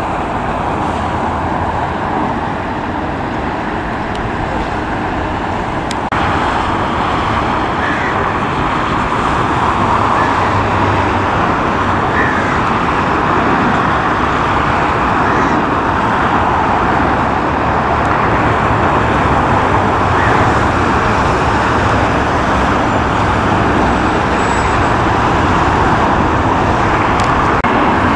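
Jet airliner departing under takeoff power: a steady rushing engine noise that steps up about six seconds in and then slowly grows louder.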